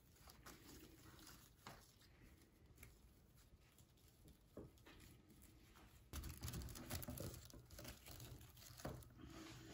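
Faint rustling and crinkling of a burlap ribbon bow being fluffed by hand, with a few small clicks, and louder rustling handling noise from about six seconds in.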